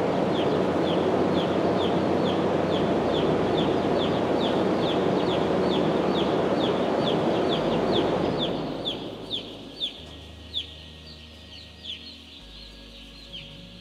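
Day-old broiler chicks peeping continuously, many short high falling cheeps each second, over the steady rushing hum of a hanging fan heater that dies away about eight seconds in. Chicks gather to this heater hum.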